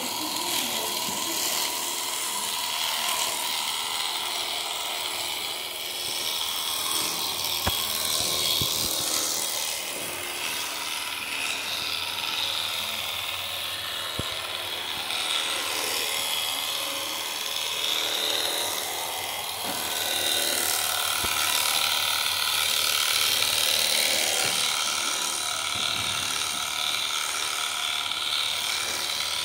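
Electric shearing handpiece running steadily as its comb and cutter clip through an alpaca's fleece, with a few faint knocks along the way.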